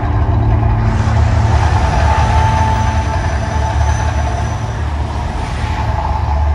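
Loud, deep continuous rumble of a man-made volcano attraction's eruption show, as gas-fed fireballs shoot up from it.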